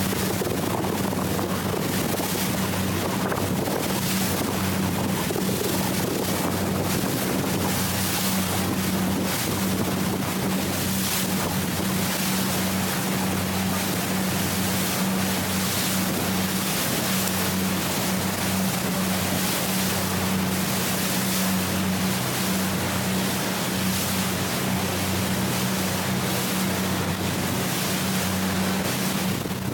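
Speedboat under way at speed: the engine's steady low drone under a constant rush of wind and water spray on the microphone.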